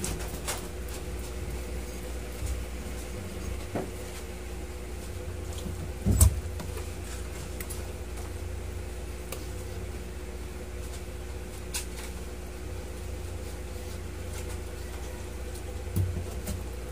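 Scattered knocks and clicks from a raw whole chicken and a large kitchen knife being handled in a plastic tub in a stainless steel sink, over a steady low hum. The loudest knock comes about six seconds in, and another comes near the end.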